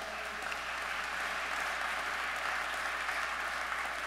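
Congregation and seated clergy applauding: a steady clapping of many hands in a large church.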